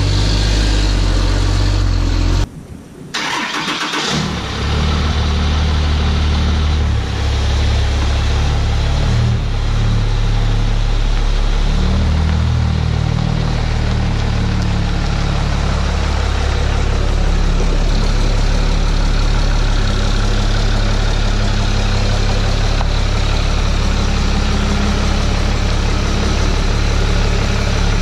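Ram pickup's 6.7 Cummins diesel engine running at low speed as the truck is driven slowly into position. There is a brief dip in the sound about two and a half seconds in.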